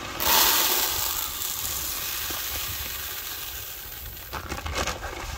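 Grass seed pouring from a plastic sack into a plastic basin: a steady hissing rattle that starts sharply about a quarter second in and slowly gets quieter.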